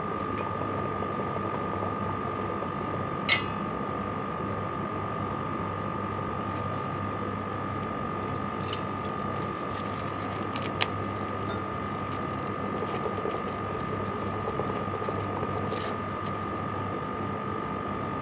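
Steady mechanical hum with a constant high-pitched whine, and two sharp clicks, about three seconds in and near eleven seconds.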